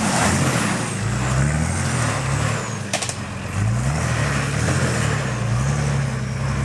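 Four-wheel-drive ute engine revving up and down as it claws up a rutted dirt track, its rear wheels spinning in loose soil. The revs drop about three seconds in, with one sharp click, then climb again.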